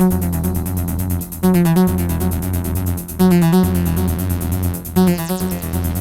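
Electronic music from a Roland T-8 beat machine and Roland S-1 synthesizer jam: a short synth riff repeats every couple of seconds over a steady bass line and fast, even hi-hat ticks, with the kick drum dropped out.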